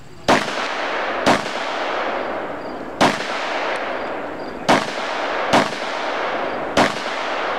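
Six pistol shots in a practical-shooting stage, fired at uneven intervals of about one to two seconds. Each shot trails off in a long echo.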